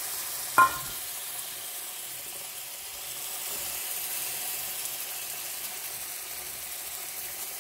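Spiced onion and gram-flour masala sizzling steadily in oil in a steel kadhai while tamarind pulp is strained into it. A steel spoon strikes the steel strainer once, with a short metallic ring, about half a second in.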